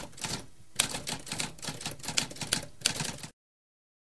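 Typewriter typing: a quick run of key strikes clacking, with a brief pause just before the first second. It cuts off abruptly a little over three seconds in.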